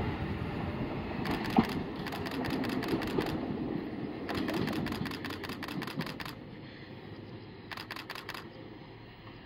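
Wakayama Electric Railway OMODEN electric train pulling away and running off into the distance, its sound fading steadily, with several bursts of rapid, evenly spaced clicking.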